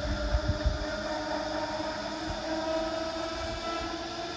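Red electric train set F1's traction motors howling as it pulls away down the line, a whine of several tones that rises slowly in pitch as the train gathers speed. Low wind rumble on the microphone in the first second.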